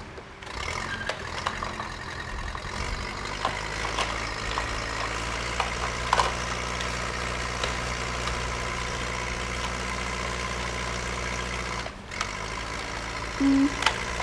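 Battery-powered toy construction vehicle playing its electronic engine-idling sound effect. It runs steadily, drops out briefly about twelve seconds in, and a short higher tone sounds near the end.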